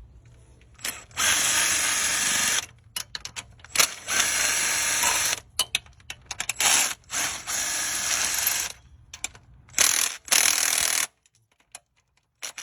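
Power wrench with a 12-point socket running in about five bursts of roughly a second each, with short clicks between them, as it undoes the cylinder head bolts of a Toyota 4.7L V8. It stops abruptly about eleven seconds in.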